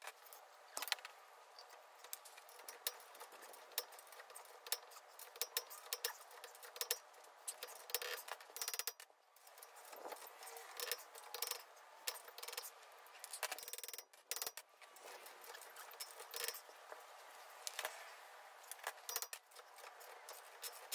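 Time-lapse shop sound: a quick, dense jumble of metallic clicks and clinks from hand tools on a hub puller, while a seized CV axle is worked out of the hub.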